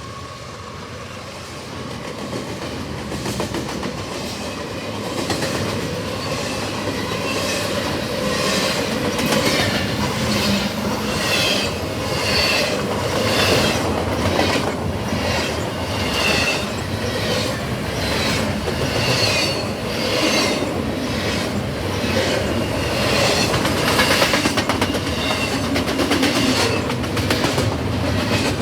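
CSX double-stack container train's cars rolling past, getting louder over the first few seconds, then a steady clickety-clack of wheels over rail joints with short high wheel squeals.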